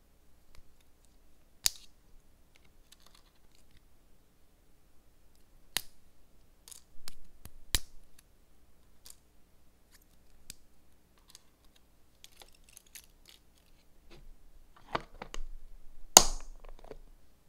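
Sparse sharp clicks and taps of small hard objects being handled, a few seconds apart, with a louder stretch of rustling and clicking and the sharpest click near the end.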